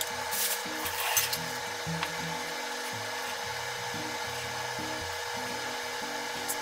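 Kitchen knife cutting raw chicken breast on a mango-wood cutting board: soft slicing strokes with a few sharp knocks of the blade against the board, the loudest about a second in. Light background music and a steady hiss run underneath.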